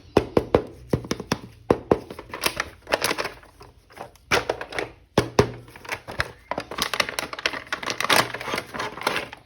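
Hands handling a plastic action figure and its packaging: a rapid, irregular run of sharp plastic clicks and taps, with crinkling.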